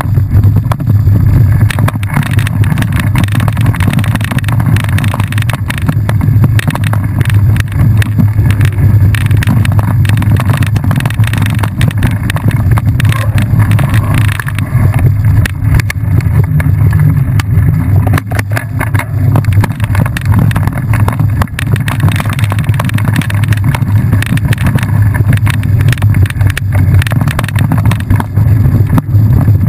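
Wind rushing over a rider-mounted camera's microphone during a fast ride on a rough dirt trail, a steady low rumble broken by frequent rattles and knocks from the bumpy ground.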